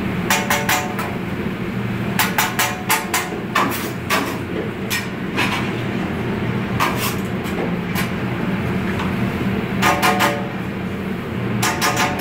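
Metal spatulas clanging at a large round flat-top griddle of a Mongolian grill, in quick clusters of ringing metallic strikes every second or two, over a steady background hum.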